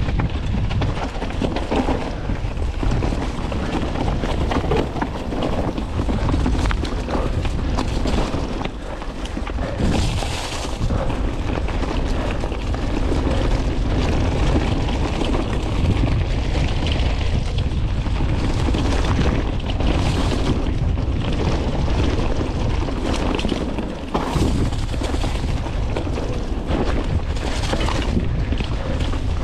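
Mountain bike riding down a rough forest trail: wind buffeting the microphone over a steady low rumble of tyres, with frequent rattling knocks from the bike over rough ground.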